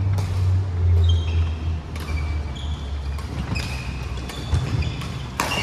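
Badminton rally: rackets striking a shuttlecock several times, with sneakers squeaking on a wooden court floor, over a steady low hum.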